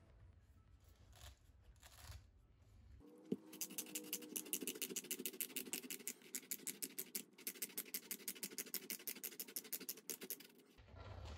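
Stainless-steel twist pineapple corer being screwed down into a pineapple, sped up about ten times. From about three seconds in there is a fast, even run of scraping ticks over a steady higher hum, which stops abruptly near the end.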